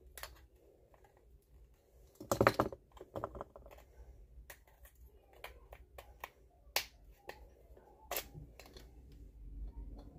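Scattered sharp plastic clicks and snaps from a sonic screwdriver toy's parts being handled and fitted together, with a brief louder rattle about two and a half seconds in.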